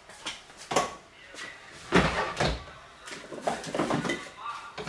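Several knocks and thumps of kitchenware being handled and set down on a countertop, among them a plate laid over a ceramic bowl; the heaviest thump comes about two seconds in.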